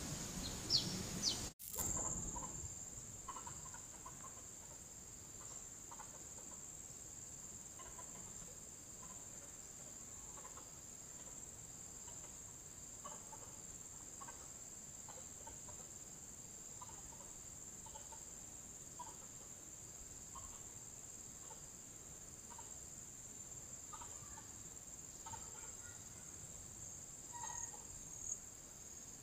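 Insects droning in one steady, high, even band, with faint short calls scattered over it. The sound drops out briefly about a second and a half in.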